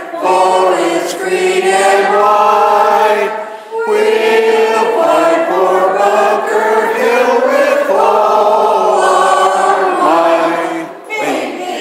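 A small group of women singing together, one of them into a handheld microphone, holding long sung notes with a short break about four seconds in.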